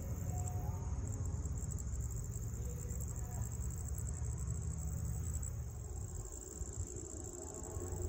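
A steady, high-pitched drone of insects trilling, over a low rumble that eases off near the end.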